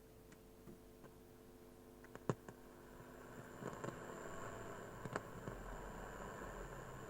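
Faint hiss from a 1959 Ekco U353 valve radio's loudspeaker, growing louder from about halfway as the valves warm up, with a thin high-pitched whistle coming in. A few sharp clicks, the loudest about two seconds in.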